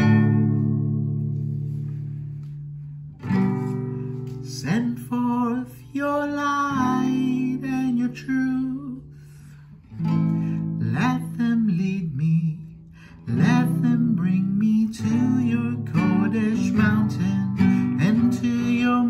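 Acoustic guitar strummed through the chords of a slow worship song, with a voice singing along at times. The first chord rings out and dies away before the strumming picks up again about three seconds in.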